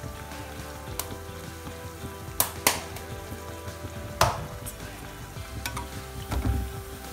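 A bhatura deep-frying in hot oil in a kadhai: steady sizzling, with three sharp clicks or pops between about two and a half and four seconds in. Near the end, a slotted spoon knocks and scrapes against the pan as it presses the bread.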